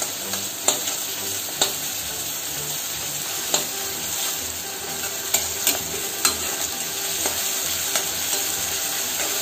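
Chopped onions and mushrooms sizzling in hot oil in a metal kadai, stirred with a metal spatula that scrapes and clicks against the pan at irregular moments.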